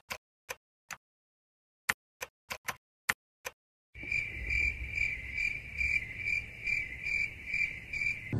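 Irregular keystrokes on a computer keyboard, a dozen or so clicks. About four seconds in, a cricket chirping sound effect starts abruptly, a steady chirp pulsing two or three times a second: the stock 'awkward silence' gag.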